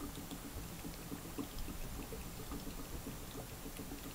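Steady bubbling and fizzing of water in a seven-plate electrolysis hydrogen generator as gas streams off the powered plates, with many small pops and ticks.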